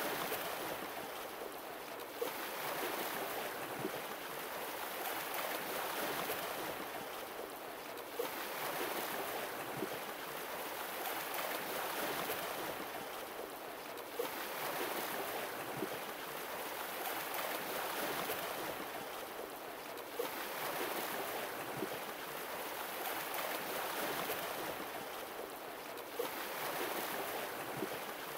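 Water splashing and lapping, a steady wash that swells and ebbs, with a sudden splash-like spike as the same pattern comes round again about every six seconds.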